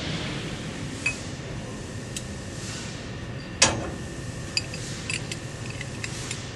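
Metal clinks of an M8 Allen key and steel-tube extension working the bottom screws of a CNC turret punch press station loose: a few sharp clicks, the loudest about three and a half seconds in, then a quick run of smaller clicks near the end, over a faint steady hum.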